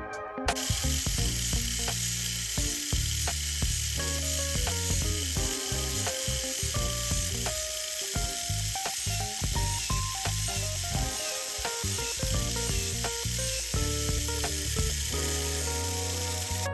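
Steady high hissing whir, typical of a Tamiya Mini 4WD machine's motor and gears running at speed. It starts about half a second in and cuts off abruptly, over background music.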